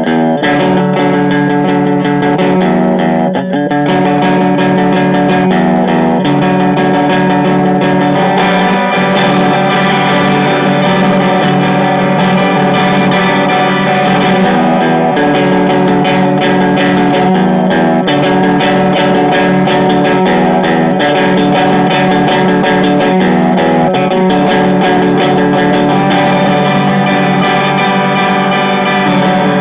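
Instrumental indie rock demo played on guitars, held chords shifting every second or two at a steady, full level.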